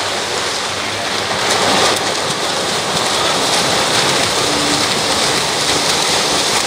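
Churning splashes of a heat of swimmers sprinting freestyle just after the dive start, a steady rushing water noise that swells slightly after about a second and a half.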